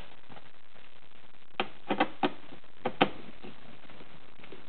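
About six sharp plastic clicks and taps in quick succession, starting about a second and a half in, from hands handling the factory speaker in the plastic overhead soundbar.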